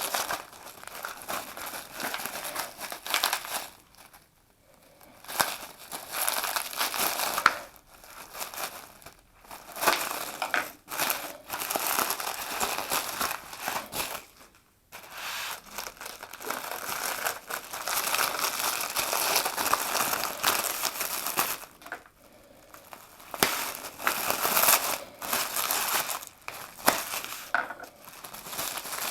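Parcel packaging crinkling and rustling in irregular bursts, with a few brief pauses, as it is handled and unwrapped.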